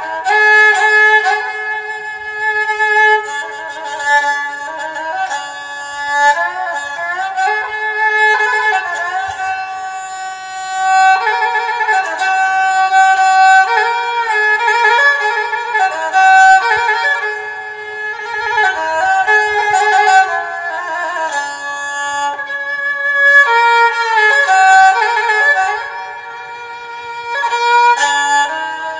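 Kantrum fiddle (so), a bowed fiddle with a bamboo neck, played solo: a melody of held notes joined by sliding ornaments.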